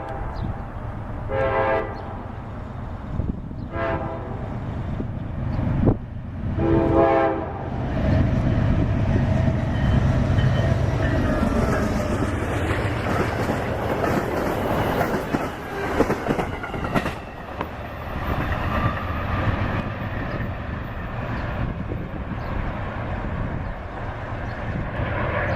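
Amtrak diesel passenger locomotive's horn giving three short honks, the third a little longer. Then the train runs by with a steady rumble of engine and wheels on rail.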